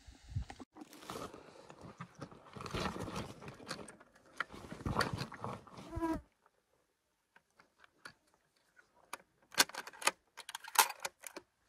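Rustling and handling noise close to the microphone for about six seconds, then it cuts off suddenly to near quiet broken by scattered sharp clicks and short rustles, two louder clicks near the end.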